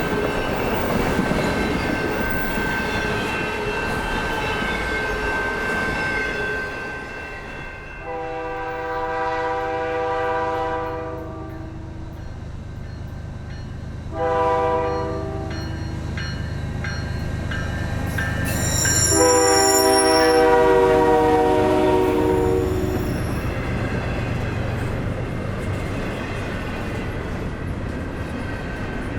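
Freight train rolling past, with steady track noise and a thin steady squeal. Then the diesel locomotive sounds its multi-tone horn three times over the low rumble of its engine: a long blast, a short one, then a louder long one.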